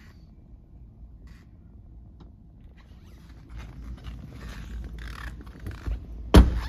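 Rustling and handling noise from a hand-held phone camera as someone moves out through a car's open rear door, then one loud, sharp knock about six seconds in.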